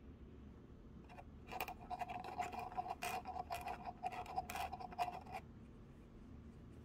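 Plastic being handled: scratchy rubbing with sharp clicks and a squeaky edge, for about four seconds, stopping a little after five seconds in.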